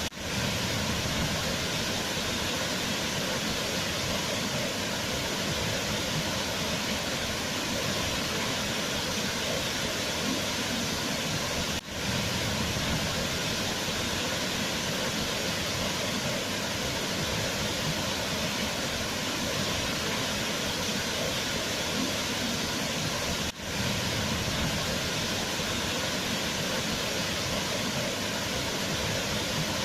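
Waterfall: a steady rush of falling water, dipping briefly twice, about twelve seconds apart.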